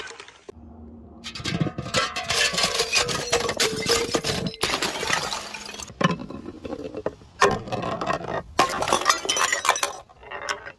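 Glass breaking and being crushed: dense crunching and clinking of shards in several bursts, with a few sharp cracks in the second half.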